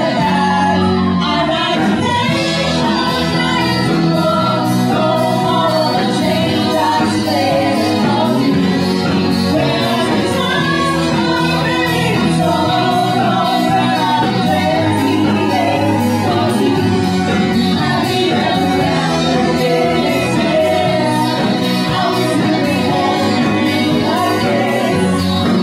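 Live band playing a pop song: a woman sings into a microphone over keyboard and guitar, amplified through a PA, loud and steady throughout.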